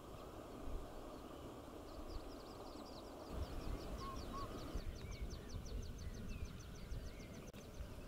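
A distant bird gives a rapid trill of short, high notes, about eight or nine a second. It starts about two seconds in and keeps going, over a faint low background hiss.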